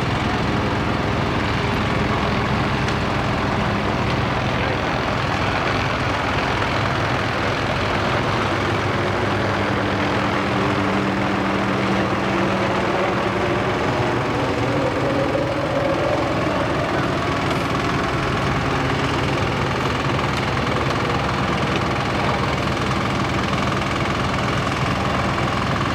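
Steady helicopter engine and rotor noise, with a tone that rises and falls in pitch about halfway through.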